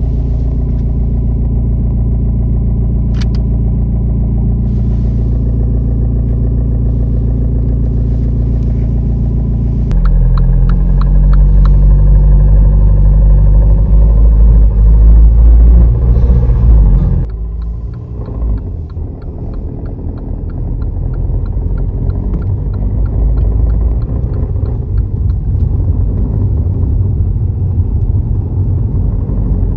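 MINI F54 Clubman's diesel engine running steadily. About ten seconds in it gets louder and deeper. About seventeen seconds in it drops off abruptly, then slowly builds again with a light, regular ticking.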